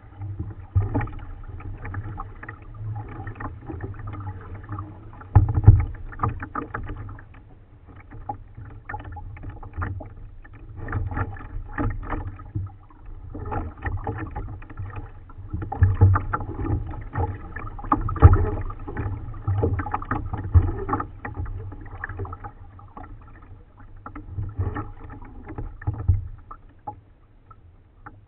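Kayak being paddled: irregular splashing from the paddle and water lapping against the hull, with low knocks, the loudest about five seconds in and around the middle; it dies down near the end.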